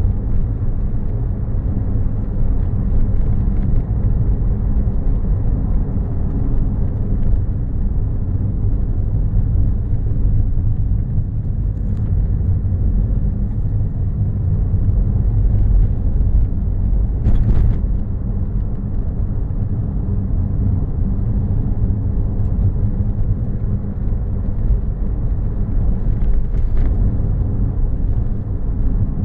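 A car driving along a rough mountain road, picked up by an in-car dashcam: a steady low rumble of road and engine noise. There is a brief sharp knock a little past halfway, with a couple of fainter ticks elsewhere.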